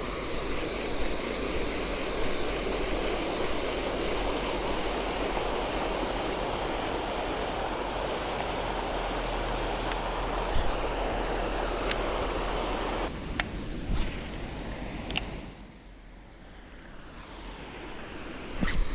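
Waterfall rushing water, a steady noise that drops suddenly about thirteen seconds in and sinks lower for a few seconds, with a few faint clicks.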